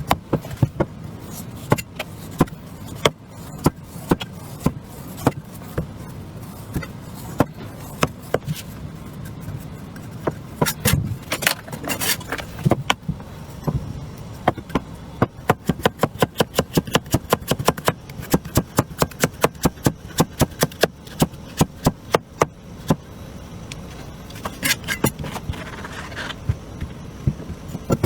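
Kitchen knife chopping potatoes on a cutting board: sharp chops, scattered at first, then a quick, fairly even run of about three a second through the middle, over a low steady hum.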